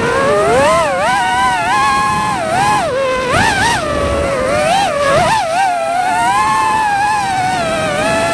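Small multirotor drone's electric motors and propellers whining, the pitch swooping up and down constantly as the throttle changes.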